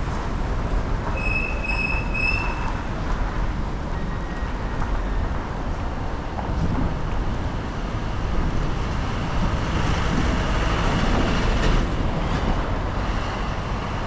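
Car driving on a wet road in the rain: steady noise of tyres on wet pavement. Three short high beeps sound about a second in, and the hiss swells for a few seconds near the end.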